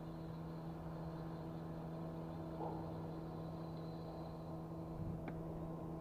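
Steady low mechanical hum with overtones, like an engine running at a constant speed, with a faint tick about five seconds in.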